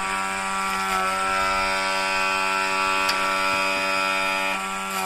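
Battery-powered onion-cutting machine's electric motor running with a steady buzz. A faint click comes about three seconds in.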